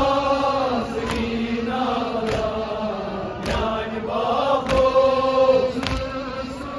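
Men's voices chanting a Kashmiri noha, a Muharram lament, in long held notes. Sharp chest-beating strikes (matam) fall in time with it, about one every 1.2 seconds.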